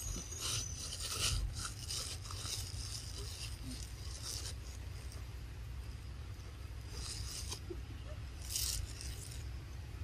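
Rustling and scraping of leafy plants as long-tailed macaques move and forage through them: a quick run of short rustles over the first few seconds, then two more bursts near the end, over a steady low rumble.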